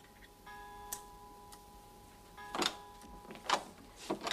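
A few short sharp clicks and knocks in a small room, over a faint steady tone that comes and goes twice. Near the end comes a door latch and a door opening.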